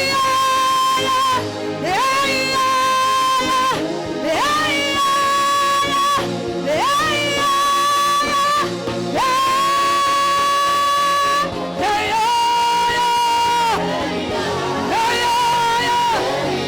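Worship music: a voice holding long wordless notes, each sliding up into pitch, one after another every two to three seconds over a steady backing.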